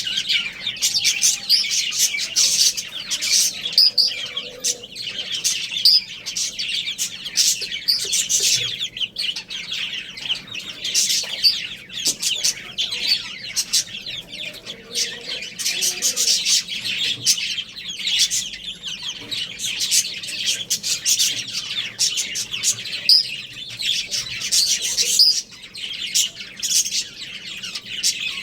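A flock of small pet birds chirping and chattering continuously, many high, quick calls overlapping.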